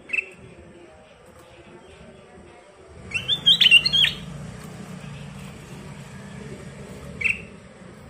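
Ruby-throated bulbul singing: a short clear note at the start, then a quick burst of gliding, warbling phrases about three seconds in that lasts about a second, and one more short note near the end.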